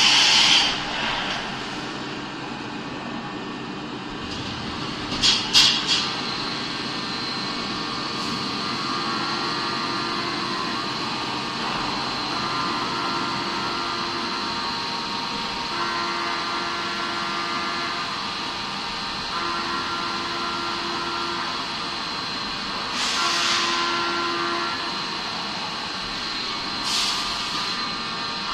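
CNC milling machine running a thread-milling cycle: a steady mechanical hum with a constant high whine, and lower motor tones that come and go in stretches of a second or two as the axes move through their passes. A few short hissing bursts break in, three quick ones about five seconds in and more near the end.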